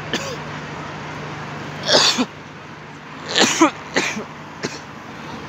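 A person close to the microphone coughing and clearing their throat in about five short bursts, the loudest about two seconds in and a cluster around three and a half seconds in, over a steady low hum of idling traffic.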